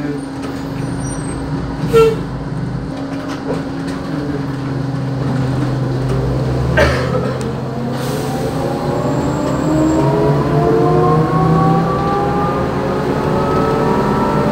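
Iveco Socimi 8820 trolleybus heard from inside the passenger cabin: a steady hum, then from about seven seconds in the electric traction drive whines with several tones rising together in pitch as the bus gathers speed. A sharp clunk comes about two seconds in and another just before the whine begins to climb.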